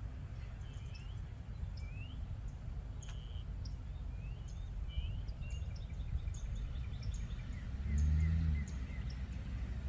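Birds chirping outdoors, with short rising calls repeated every half second or so, over a steady low rumble. About eight seconds in there is a brief, louder low hum.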